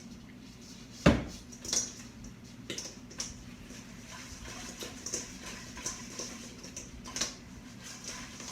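A spoon clinking and knocking against a bowl as fried chicken wings are stirred and coated in sauce, with one sharp knock about a second in and lighter clicks after it.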